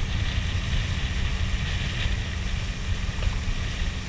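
Motorboat engine running steadily with a low hum while the boat is under way.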